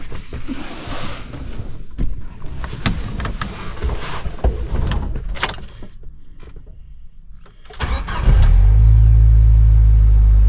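A run of knocks and clicks, then about eight seconds in a Jeep Wrangler's engine cranks briefly, catches and settles into a steady idle. It starts promptly, just like it's supposed to.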